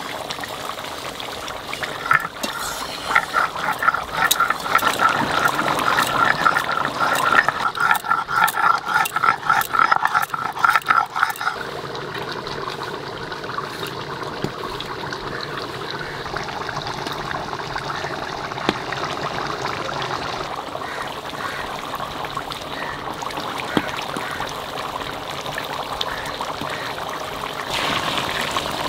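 Spices being ground on a flat stone slab with a stone muller (sil-nora): rhythmic grating strokes of stone on stone for about ten seconds, then they stop, leaving a quieter steady hiss.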